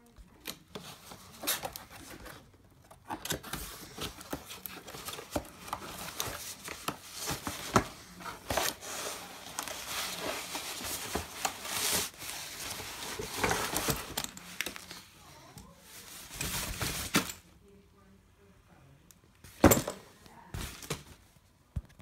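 Packaging being unwrapped by hand: plastic wrap and a foam sheet crinkling and tearing in irregular bursts, with small clicks of the box being handled. The rustling stops a few seconds before the end, then comes one sharp knock.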